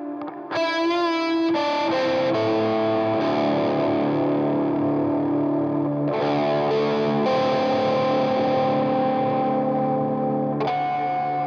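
Electric guitar played through a Keeley D&M Drive overdrive pedal at a high-gain, distorted setting. A held note wavers in pitch with vibrato, then sustained chords ring out and change every second or few.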